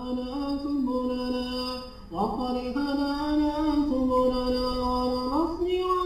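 A man's voice reciting the Quran in the melodic, drawn-out tajweed style. He holds long notes that glide between pitches, takes a fresh breath about two seconds in, and rises to a higher note near the end. The recitation is a recording played back through Audacity's Bass and Treble tone controls.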